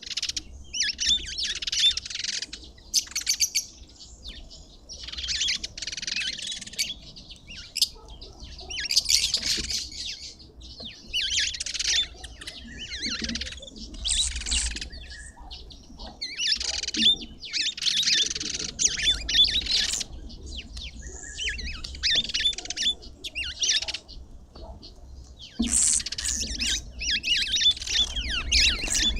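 Wild songbirds singing and chirping in repeated bursts of quick high notes, one burst every couple of seconds.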